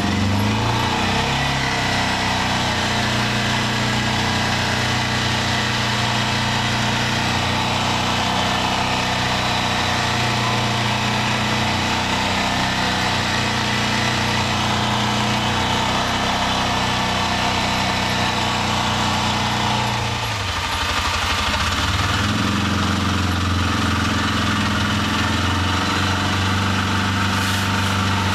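Arctic Cat Prowler 550 UTV's single-cylinder engine running steadily while the vehicle pushes snow with its front plow, heard from inside the canvas cab. About twenty seconds in, the engine note drops off briefly, then picks back up.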